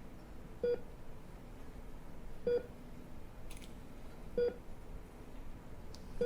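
Patient heart-rate monitor beeping: a short electronic beep about every two seconds, evenly spaced.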